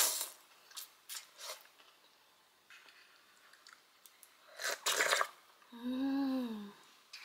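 A person eating cup noodles: a loud slurp of noodles at the start, small mouth and chopstick clicks, a second loud slurp as broth is sipped from the cup about five seconds in, then a short hummed "mmm" of enjoyment that rises and falls.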